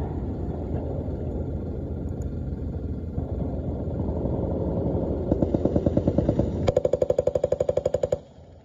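Automatic weapons fire on a live-fire range: a continuous rattle of shots, then sustained bursts at about ten rounds a second that grow louder and stop suddenly near the end.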